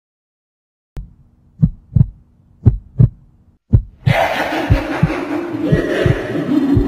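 Heartbeat sound effect: slow double thumps that quicken about four seconds in, when a loud rushing noise joins them.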